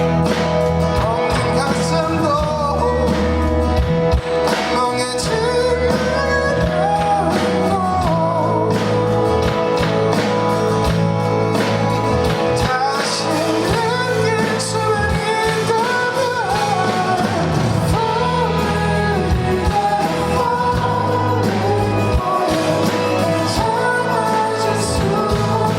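Live pop ballad performance: a male singer's voice carrying the melody over a full band with sustained bass and guitar, heard through a fan's camera microphone in the audience.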